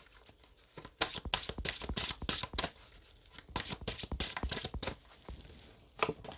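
Oracle cards being shuffled by hand: quick runs of soft card slaps and flicks, in two bursts with a few more near the end.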